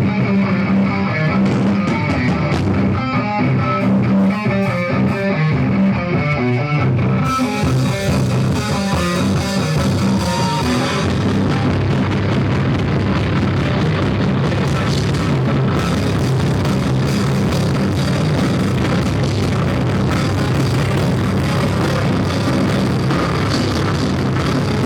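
A rock band playing live. An electric guitar picks out a riff alone at first, drums with cymbals come in about seven seconds in, and the full band plays from about eleven seconds.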